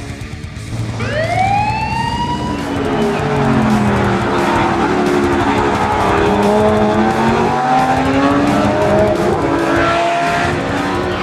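Toy-video vehicle sound effects: a rising whoosh about a second in, then layered engine-like wavering tones over a noisy rush.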